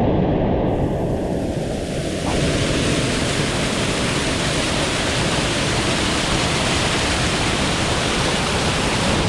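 Small waterfall on a fast stream, water rushing loudly and steadily close by. The sound grows brighter and fuller about two seconds in.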